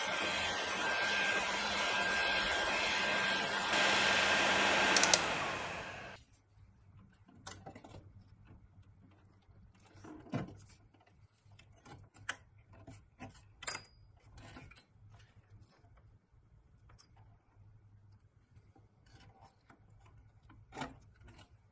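Heat gun blowing with a steady high whine for about the first five seconds, then switched off with a click and winding down. After that come faint, scattered clicks and scrapes of a small metal pick prying at a toy truck's wheel hub and white sidewall ring.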